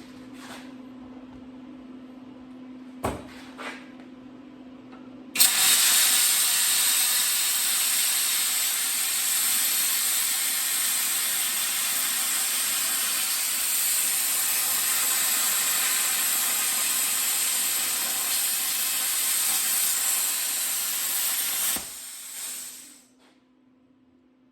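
Plasma cutter arc cutting 1/4-inch aluminum at about 50 amps: a loud, steady hiss starts suddenly about five seconds in, runs for about sixteen seconds, then stops with a short fading tail. Before it there is a steady hum and two sharp clicks. At this setting the cut does not go all the way through the aluminum.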